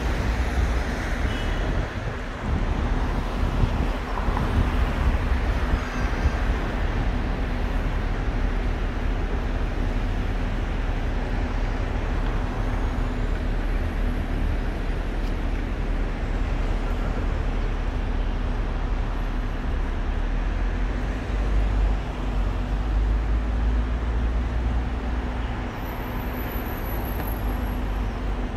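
Steady city traffic noise with a deep rumble and a constant low hum.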